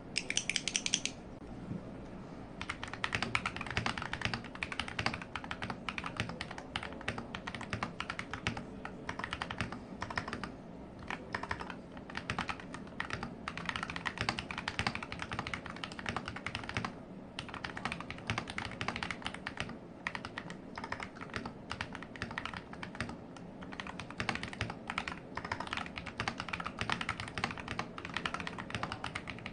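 Modded Royal Kludge RK100 mechanical keyboard being typed on: a fast, steady run of key clicks with brief pauses, starting about two and a half seconds in after a short high-pitched sound in the first second.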